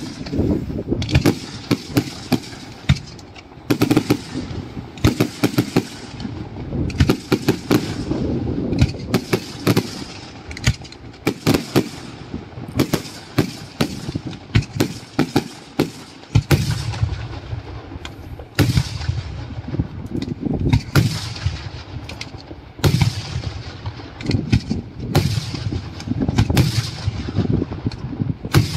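Daytime fireworks display: an irregular, rapid run of sharp bangs from bursting aerial shells, at times several a second, with a low rumble carrying on between the reports.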